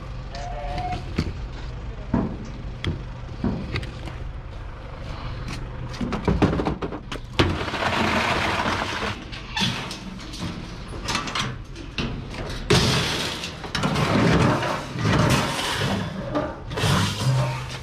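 A stripped washing machine's sheet-steel cabinet being handled and dragged, scraping and clattering on concrete in a run of loud noisy bursts after the first few seconds, over a low steady hum.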